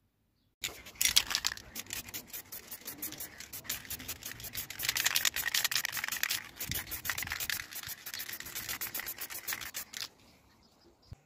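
Aerosol can of black gloss spray paint hissing as it sprays, with a rapid flutter, starting just under a second in and stopping about ten seconds in.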